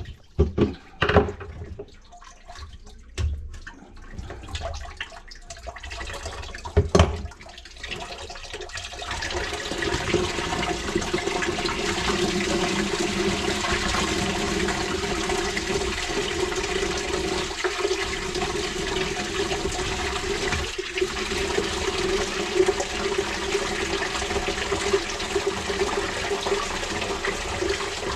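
A few sharp knocks, then from about nine seconds in a steady rush of water pouring from the disconnected sink drain pipe into a plastic bucket: the backed-up water of the clogged kitchen sink draining out with the trap removed.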